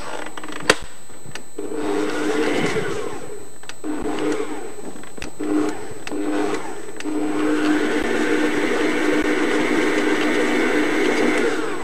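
Electric stand mixer running slowly, beating firm butter into flour, semolina and powdered sugar for a stiff cookie dough. Its motor hum swells and dips, then runs steadier and a little louder in the second half, with a click just under a second in.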